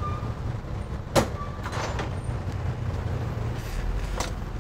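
Steady low hum with one sharp click about a second in and a couple of faint short handling noises, as small parts are handled on a workbench.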